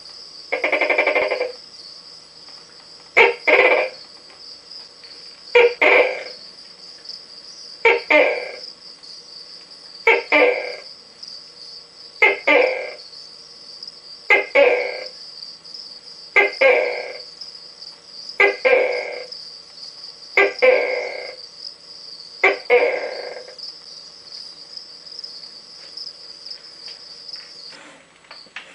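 Tokay gecko calling: one longer opening note, then a series of ten two-part "to-kay" barks, one about every two seconds, each starting sharply and trailing off. A steady high trill runs behind the calls and stops near the end.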